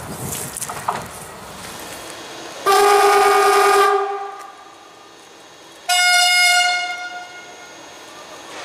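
CFR Class 41 electric locomotive sounding its horn twice: a lower-pitched blast lasting about a second, then a higher-pitched blast about three seconds later. Fading rail noise comes before them.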